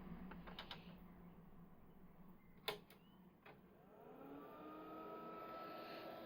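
Faint power switch click on an Amiga A4000, followed about a second later by the computer's fan and drive motors spinning up: a rising whine that settles into a steady whir at power-on.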